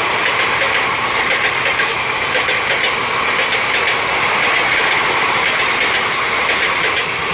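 Train rushing past at speed: a steady, loud roar of wheels on rails, with the clatter of wheels over the rail joints.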